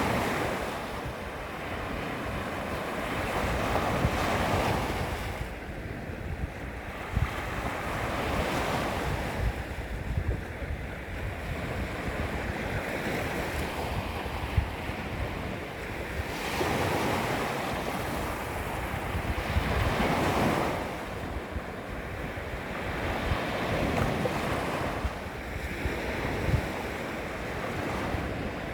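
Small sea waves lapping against the shoreline, swelling and ebbing every few seconds, with wind rumbling on the microphone.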